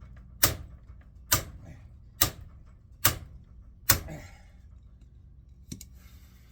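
Hammer striking metal in five sharp, evenly spaced blows a little under a second apart, then one lighter tap near the end: pounding to knock a stuck armature, held in by its strong magnet, out of a speed reducer motor.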